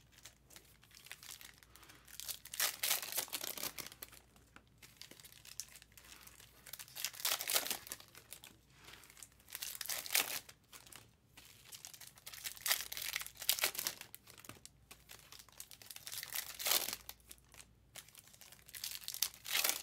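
Foil trading-card pack wrappers being torn open and crinkled, in short bursts every few seconds.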